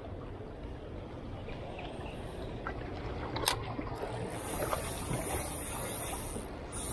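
Small waves lapping and splashing against the rocky shore over a steady low rumble, with a single sharp click about halfway through.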